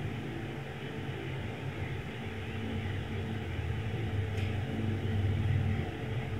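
Steady low mechanical hum and rumble, growing slightly louder near the end, with one faint click about four and a half seconds in.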